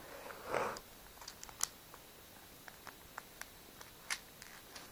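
Scattered small, sharp clicks and ticks of hands handling small objects, irregularly spaced, with a soft rustle or breath about half a second in.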